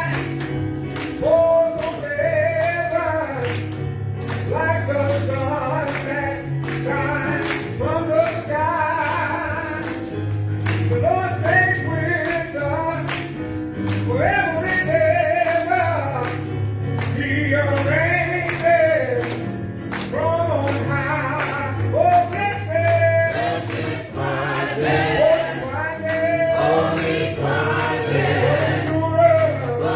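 Gospel choir singing a song with band accompaniment: a steady drum beat about twice a second under low bass notes.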